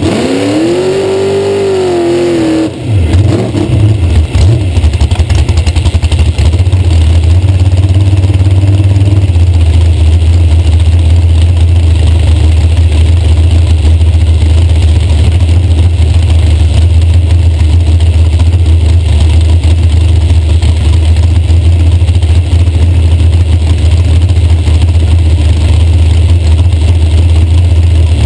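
Dragster engine revving up and back down once, then idling loud and steady as the car waits near the starting line; the onboard microphone is overloaded.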